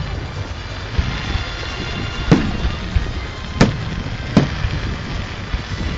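Fireworks exploding overhead: sharp bangs about two, three and a half and four and a half seconds in, with smaller pops between, over steady background noise.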